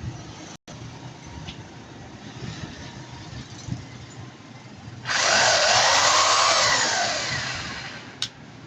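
Electric drill switched on about five seconds in, running at speed for a second or two, then released and winding down, its pitch and level falling away. A short click comes near the end.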